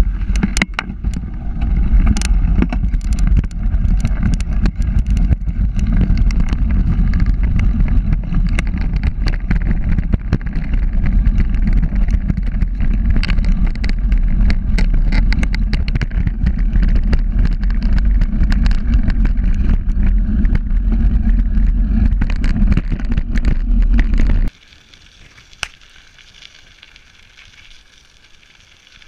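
Bicycle tyres rolling fast over a loose gravel track: a loud steady rumble full of crackling stone clicks, with the ride's vibration and wind carried into the handlebar-mounted camera's microphone. It cuts off abruptly about 24 seconds in, leaving a much quieter background.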